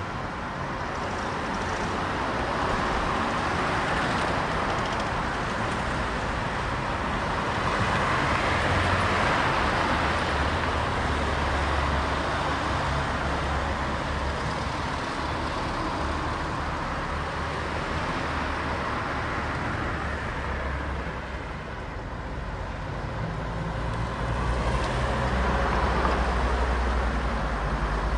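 City street traffic: a steady wash of cars passing, their tyre and engine noise swelling and fading every few seconds. A low engine rumble comes in through the middle and again near the end.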